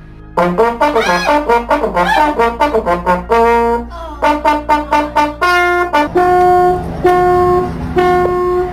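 Brass music: a quick run of trombone- and trumpet-like notes with some bends, then four held notes on the same pitch.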